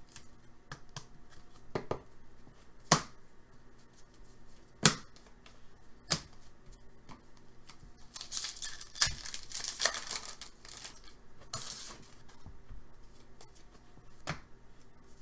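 A few sharp clicks in the first half, then a trading card pack's foil wrapper crackling and tearing for about four seconds as the pack is ripped open.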